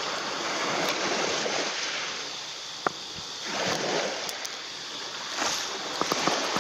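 Surf washing onto a sandy beach, swelling and fading in surges about every two seconds, with a single sharp click about three seconds in.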